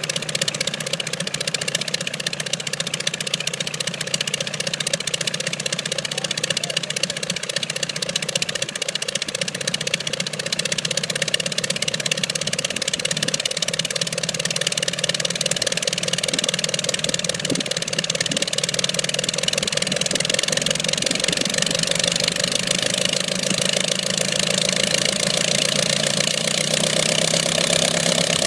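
Original Curtiss OX-5 water-cooled V8 aero engine running steadily on a test stand; its speed picks up slightly over the last several seconds.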